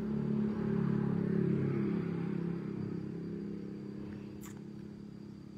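A motor vehicle driving past on the road, its engine hum loudest in the first two seconds, then falling in pitch and fading away. A single sharp click about four and a half seconds in.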